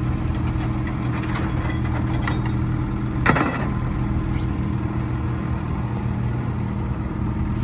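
Snowmobile engines idling steadily while warming up, with a sharp knock about three seconds in and a few lighter clicks.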